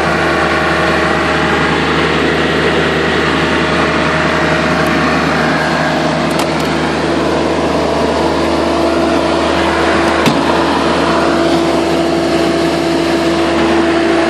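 Kubota-engined 12 kVA welding generator set running steadily with an even engine hum. A tone in the hum gets stronger about eight seconds in, and there is a single short click a little after ten seconds.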